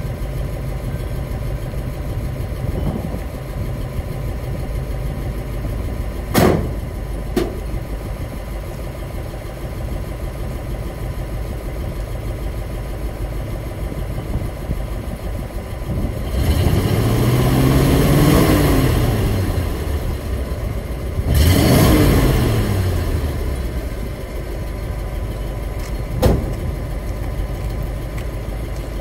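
1940 Ford pickup's 221 cubic inch flathead V8 idling steadily, revved twice past the middle, each time rising in pitch and falling back to idle. A few sharp clicks sound over it, two early and one near the end.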